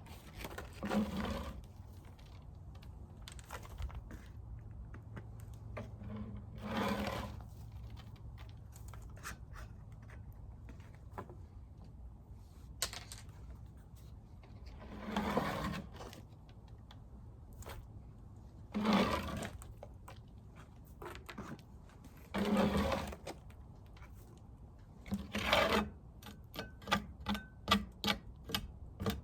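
Dead bees and debris being scraped off a beehive bottom board: about six short scraping strokes a few seconds apart, then a run of quick taps and clicks near the end.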